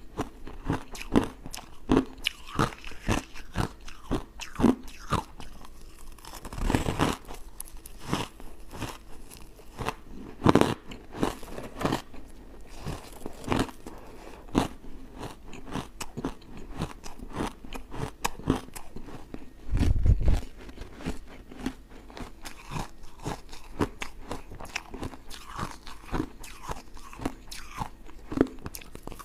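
Close-miked biting and chewing of hard refrozen ice chunks: a dense run of sharp crunches and crackles, with a short low thump about two-thirds of the way through.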